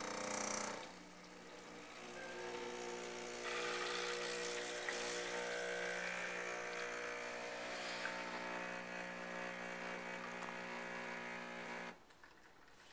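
Nespresso Le Cube capsule espresso machine brewing: its pump buzzes steadily with a hiss joining about three and a half seconds in as the coffee runs into the cup, then it stops abruptly about twelve seconds in.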